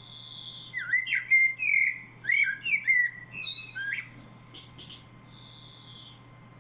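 A songbird singing a quick run of chirps and whistled notes that glide up and down for about three seconds, followed by a short hissing buzz.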